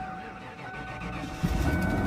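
A vehicle engine running with a low rumble, which gets louder about one and a half seconds in as the plow vehicle gets going.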